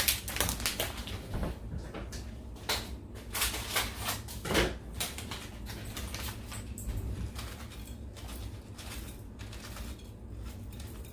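Plastic packet of crispy onions crinkling and rustling as the onions are shaken out and sprinkled over a plate of food. A dense run of small crackles that thins out about halfway through.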